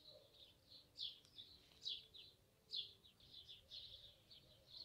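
Faint bird chirping: a run of short, high chirps, the louder ones about once a second with softer ones between.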